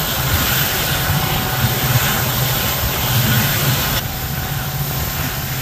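A passenger train climbing a steep grade, heard from an open coach doorway: a steady low rumble of the locomotive working hard, like a bus labouring uphill in a low gear, over the running noise of the coaches. About four seconds in, the higher hiss drops off abruptly.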